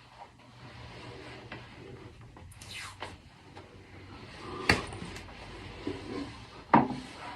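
Hand tools and cable handling at an alarm control panel during wiring: quiet fiddling with a brief scrape about three seconds in, then two sharp snaps about two seconds apart as cores are cut and fitted to the terminals.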